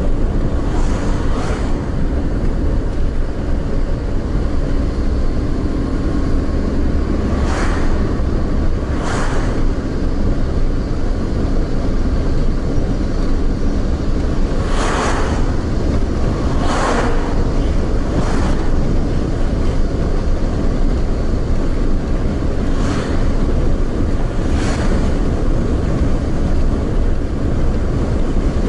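Car driving steadily along a road, with constant low road and engine rumble. Passing vehicles go by in short whooshes, about eight times.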